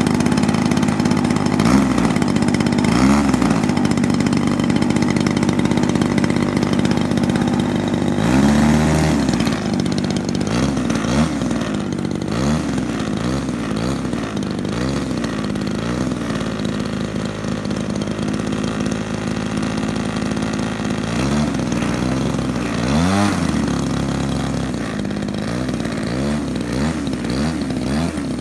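Radio-controlled Extra 360 model aeroplane's engine running, its throttle repeatedly opened and closed so the pitch rises and falls again and again as the plane taxis on grass. The two biggest revs come about 8 seconds in and again about 23 seconds in.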